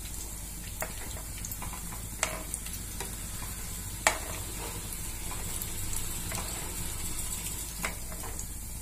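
Breadcrumb-coated egg and potato kababs deep-frying in hot oil on low heat: a steady sizzling hiss. A few sharp clicks, the loudest about two and four seconds in, come as a metal spoon turns them against the pan.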